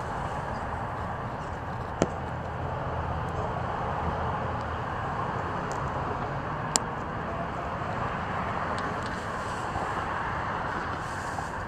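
Steady rushing background noise, with two sharp clicks, one about two seconds in and one near seven seconds.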